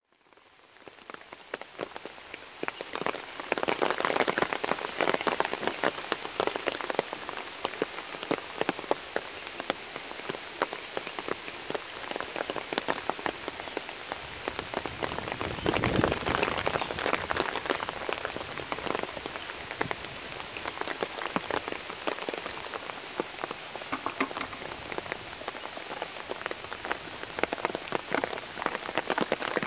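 Rain falling on leaves and wet ground, a dense, steady patter of drops. It fades in over the first few seconds, with heavier spells about four seconds in and again around the middle.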